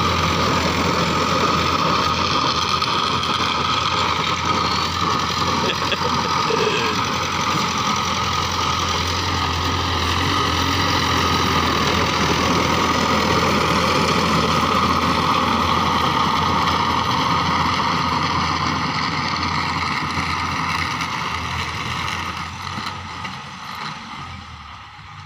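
TAFE 5900 DI tractor's diesel engine running steadily under load while it drives a rear-mounted rotary tiller through the soil. The sound fades over the last few seconds as the tractor moves away.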